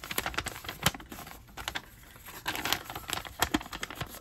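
Toy packaging being handled: a plastic parts bag and paper crinkling and rustling, with a quick run of small clicks and taps.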